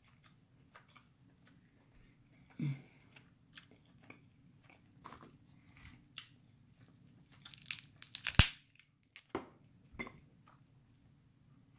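Crab legs being cracked and pulled apart by hand, with close-up chewing: scattered crunches and small snaps, thickening into a run of cracks with one sharp, loud snap about eight seconds in.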